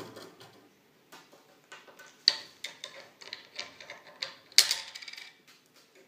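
Irregular clicks and clatters of an African grey parrot handling small trick toys, a toy shopping cart and plastic pieces, on a tabletop, with two sharper clacks about two and a quarter and four and a half seconds in.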